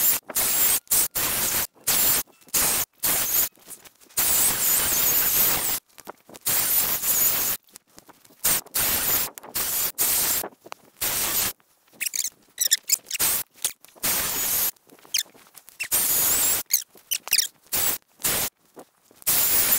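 Greenworks 40-volt cordless electric chainsaw cutting fallen tree limbs in many short stop-start bursts. The motor whines high while the chain bites the wood, and it stops dead between each burst.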